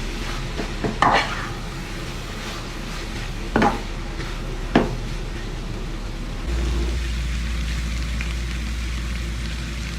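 Chopped chicken liver, gizzard and heart frying for sisig, sizzling steadily in a pan as it is stirred, with a utensil knocking sharply against the pan three times in the first five seconds.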